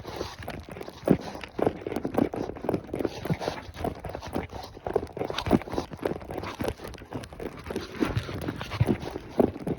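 Hooves of a ridden horse striking the ground, a quick, uneven run of hoofbeats several times a second.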